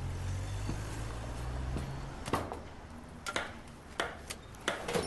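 A low hum that fades out about two seconds in, then several sharp, irregular knocks and clicks from a butcher's knife and meat being worked on the counter.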